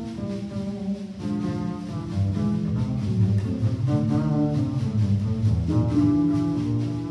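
Small jazz group playing live: four guitars with double bass and drums, the guitars carrying the melody over a walking bass line.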